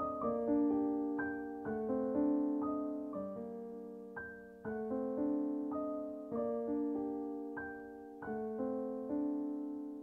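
Soft background piano music: gentle, slowly fading notes struck in an unhurried, flowing pattern.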